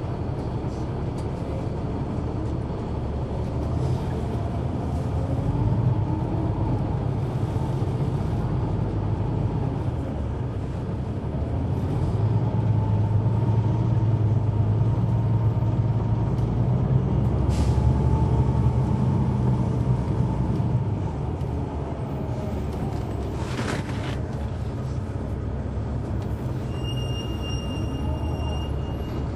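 Caterpillar C9 ACERT diesel engine and ZF Ecomat automatic transmission of a Neoplan AN459 articulated bus, heard on board from the rear while driving. The engine drone grows louder through a stretch of acceleration in the middle, with a transmission whine that rises and falls in pitch, and two brief air hisses in the second half.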